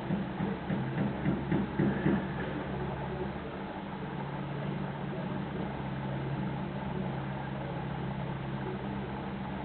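Heavy diesel lorry engine running with a steady low hum as the articulated lorry manoeuvres slowly.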